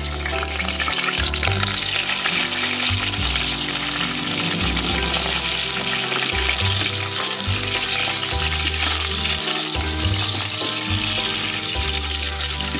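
Fenugreek seeds and cut okra frying in hot oil in a clay pot, a steady sizzle, stirred with a spatula.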